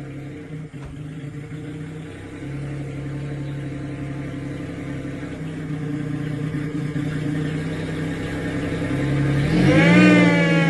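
AMR500 engine running at a steady idle on its first start. Near the end it is blipped once: the pitch rises sharply and falls back.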